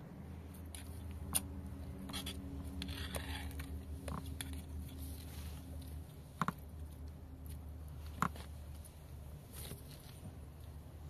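Spoons clinking and scraping on a metal tray of rice during a meal, with a few sharp clinks standing out, over a low steady rumble.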